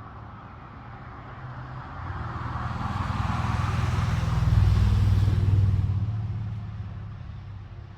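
A road vehicle passing by: its engine hum and tyre noise swell over a few seconds, peak about halfway through, then fade away.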